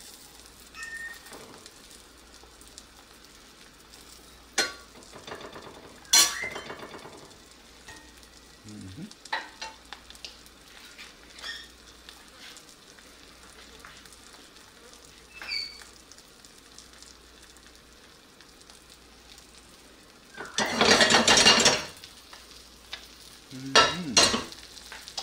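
Eggs frying in a cast iron skillet, with a faint sizzle under scattered clicks and clatters of a utensil against the pan. A loud scrape lasting about a second and a half comes near the end.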